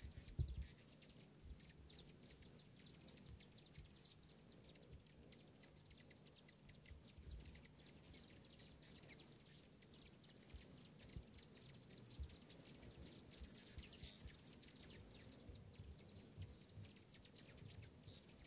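Steady high-pitched chirring of an insect chorus on a summer evening, swelling and fading a little, with a few faint low bumps.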